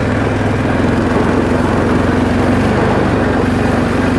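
Honda ATV engine running steadily at a constant speed under load while it tows a loaded cart up a steep gravel hill.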